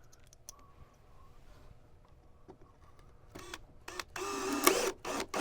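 Cordless drill-driver running in bursts, most likely driving screws into the cabinet: a short run, a longer pull of about a second whose motor pitch rises and sags, then quick pulses near the end. A faint whistled tone sounds at the start.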